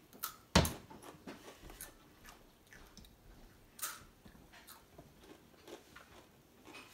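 A child biting into a Takis Nitro rolled corn tortilla chip with one loud crunch about half a second in, then chewing it with fainter crunches and a second sharper crunch near four seconds.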